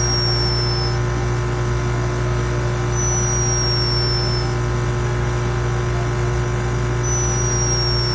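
Sleeping baby hummingbird snoring: a thin, high-pitched whistle that slides slightly down in pitch and lasts about a second and a half, repeated about every four seconds. A steady low hum runs underneath and is louder than the whistles.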